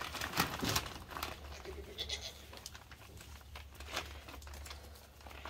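Paper feed sack rustling and crinkling in short scrapes as its stitched string closure is pulled open, with a faint animal call about two seconds in.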